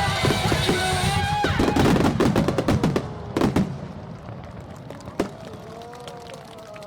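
Fireworks bursting over music with drums. A rapid run of pops and crackles comes about two seconds in, then a heavy bang at about three and a half seconds and another about five seconds in. The music drops away after three seconds.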